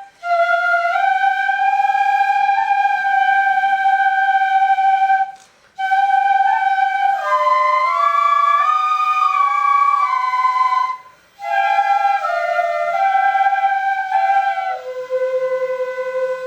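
An ensemble of shinobue (Japanese bamboo transverse flutes) plays a slow melody in long phrases with brief breath breaks. Near the end it settles on a long held low note as the piece closes.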